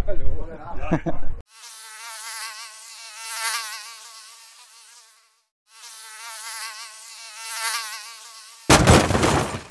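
Small quadcopter drone buzzing in flight, its whine wavering up and down as the propeller speed changes, with a short break in the middle. A loud burst of noise comes about a second before the end.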